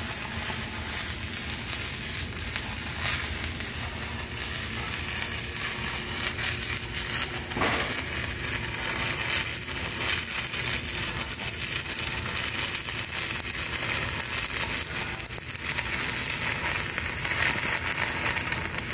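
Stick-welding arc of a 1/8-inch E6010 electrode running a root pass on 2-inch schedule 80 steel pipe, crackling and sizzling steadily without a break.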